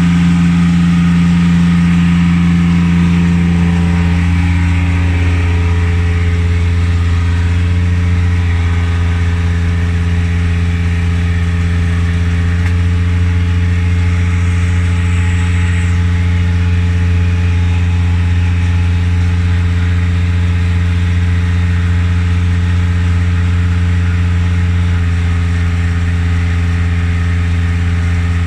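An engine running steadily at constant speed, a low even hum with a slight change in tone a few seconds in.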